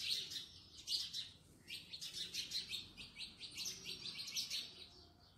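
Birds chirping: short, high chirps in quick runs of several a second.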